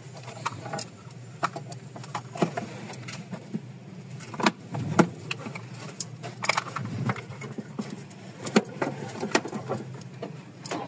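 Scattered metallic clicks, clinks and light knocks of tools and small parts being handled during car repair work, over a steady low hum.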